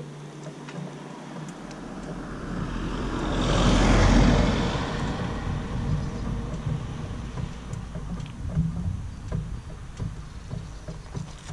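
A car driving past on the road: engine and tyre noise swell to a peak about four seconds in, then fade away.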